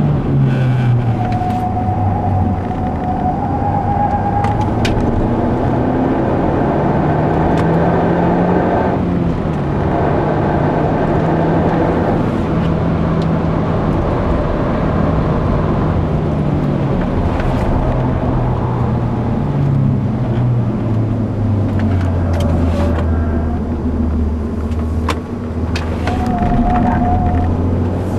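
Mazda 3 MPS turbocharged 2.3-litre four-cylinder engine heard from inside the cabin while driven on track. Its note rises under acceleration and drops several times as the driver lifts or changes gear, over steady road and wind noise.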